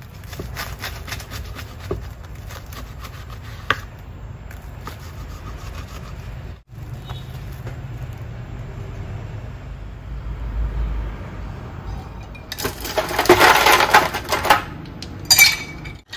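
Kitchen handling sounds: scattered light clicks, clinks and knocks over a low hum, then a loud rush of noise lasting about two seconds near the end, followed by a brief sharp clatter.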